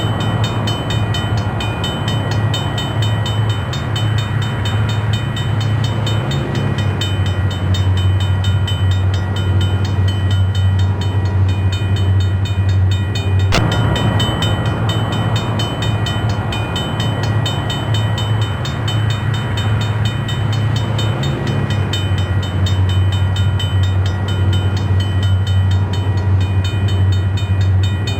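Train running steadily: a loud, continuous low rumble with steady tones above it and a brief click about halfway through.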